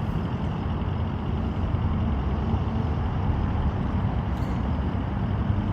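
Steady low rumble of a vehicle engine, with a faint steady hum underneath.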